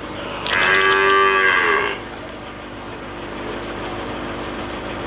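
A cow moos once, a long rising-and-falling call starting about half a second in and lasting about a second and a half. Under it runs the steady blowing hum of a hot-air SMD rework station, set to low air and high heat, as it heats a buck converter chip on a TV board to desolder it.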